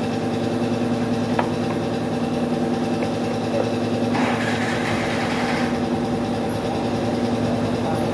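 An engine running steadily at idle, out of sight, with a short click a little over a second in and a brief hiss from about four seconds in. It cuts off suddenly at the end.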